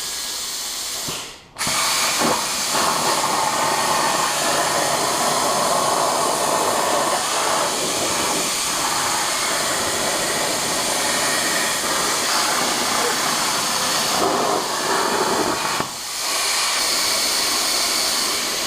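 CNC plasma torch cutting a metal sheet: a steady, loud hiss of the arc and air jet. It cuts out briefly about a second and a half in and restarts, and dips again for a moment near the end.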